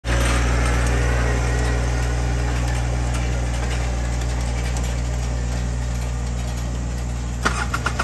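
John Deere sub-compact tractor's diesel engine running steadily under the load of a roller crimper, slowly fading as the tractor moves away. A few sharp clicks come near the end.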